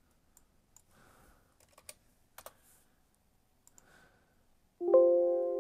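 Faint computer keyboard typing and mouse clicks. Near the end, a loud chime of several steady tones sounds suddenly and fades.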